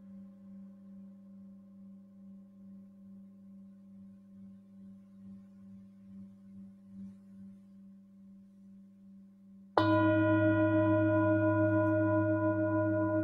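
Tibetan singing bowls: a faint hum from a bowl dying away, with a slow wobble in its tone. Near the end, a bowl is struck with a mallet and rings out loud and sustained, with several tones sounding together.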